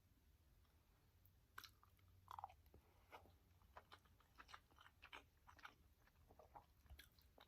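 Faint chewing and wet mouth clicks from someone eating a mouthful of rice in sauce: a string of small irregular smacks.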